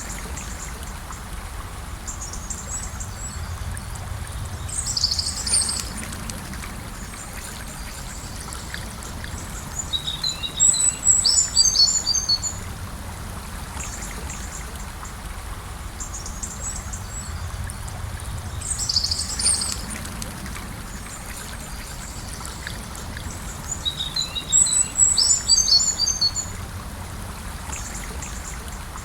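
Gentle river flowing with a steady rush of water, while small birds chirp in short high bursts about every five to seven seconds.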